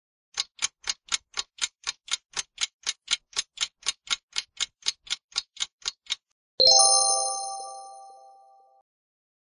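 Clock-ticking countdown sound effect, about four ticks a second, counting down the quiz answer time. It stops, and a bright multi-tone chime rings once, the loudest sound, and fades over about two seconds, signalling the correct answer.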